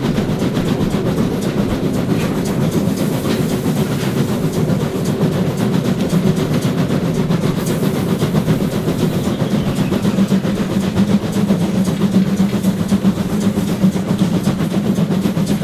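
Class 52 2-10-0 steam locomotive working uphill under steam: a continuous sound of exhaust and running gear, without a break.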